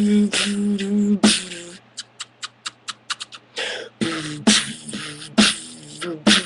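Beatboxing: a hummed bass tone under sharp snare-like hits, then for about a second and a half a quick run of crisp mouth clicks, then hummed notes and hits resume. It is a mouth-made cover of an electronic song.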